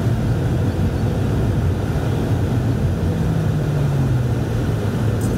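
Renault Master van's diesel engine running steadily while driving, heard from inside the cab with road noise. Its note drops slightly about four seconds in.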